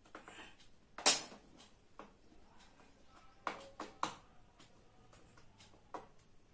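Sharp clicks and knocks of hands working at the edge of a face-down LED TV's back panel: one loud snap about a second in, a quick run of three about halfway, and another near the end.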